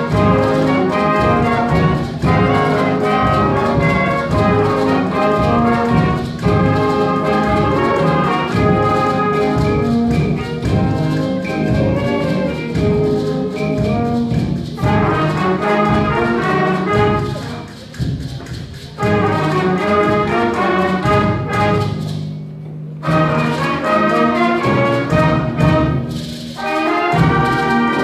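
Student concert band playing a tango, with clarinets, trumpets, trombones and tubas together. There are a few brief drops in volume in the second half.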